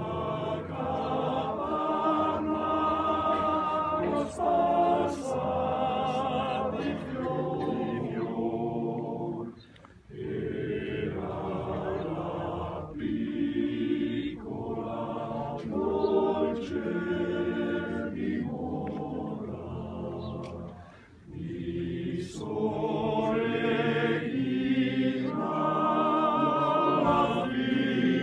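Male voice choir singing a cappella in sustained multi-part chords, with short pauses between phrases about ten and twenty-one seconds in.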